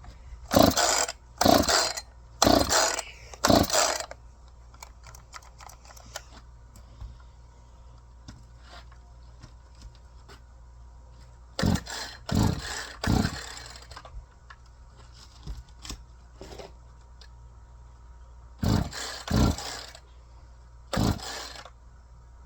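Chainsaw being pull-started: about ten quick pulls of the recoil starter cord, each a short burst of the engine cranking over, in three groups of four, three and three. The engine does not catch and run.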